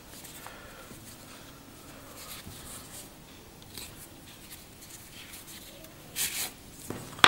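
A khaki canvas watch strap handled between the fingers: faint rustling and scraping of the stiff fabric as it is turned and bent, with a brief louder scrape about six seconds in.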